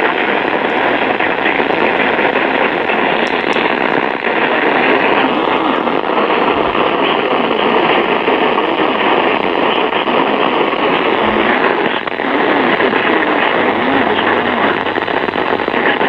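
Loud, steady static hiss from a weather radio receiver, as thin as sound over a radio.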